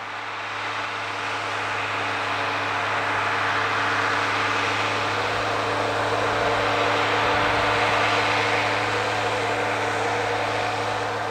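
Ford 9700 tractor's 6.6-litre (401 cu in) six-cylinder diesel engine running steadily under load while pulling a five-bottom mouldboard plow, a constant low drone with a hard mechanical rumble over it. It grows louder over the first few seconds and eases off a little near the end.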